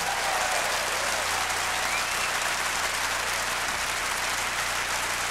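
Concert audience applauding steadily: dense, even clapping from a large crowd.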